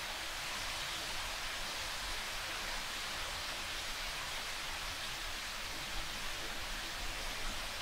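Steady hiss of rain falling, even throughout.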